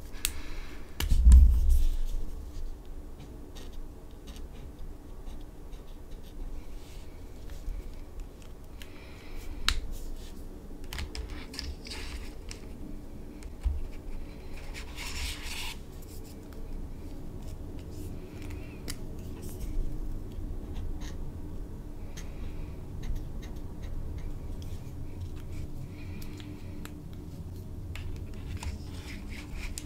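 Felt-tip marker strokes scratching on paper as colour swatches are drawn, with scattered clicks of marker caps and markers handled in a plastic marker case. A heavy low thump sounds about a second and a half in.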